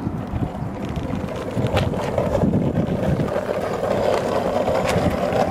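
Skateboard wheels rolling over asphalt: a steady rumble that grows louder about a second and a half in, with a couple of sharp clicks.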